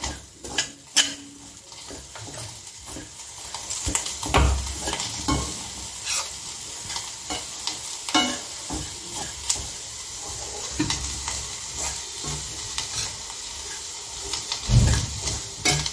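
A metal spoon stirring dry roasted semolina, grated coconut and powdered sugar in a stainless steel pan, with repeated scrapes and clinks against the pan over a steady hiss, and a couple of heavier knocks.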